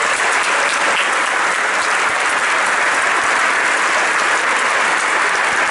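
Audience applauding, a steady, loud round of clapping that holds throughout.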